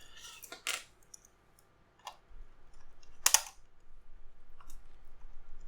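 A few separate sharp plastic clicks of keycaps being handled on a mechanical keyboard, the loudest about three seconds in.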